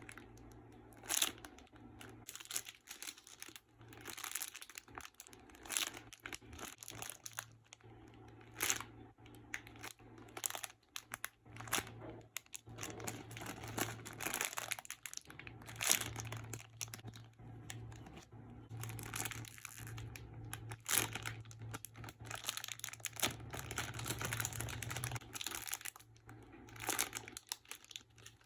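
Plastic crinkling and rustling in irregular bursts, with a few sharper crackles, as squishy toys in plastic packaging are handled.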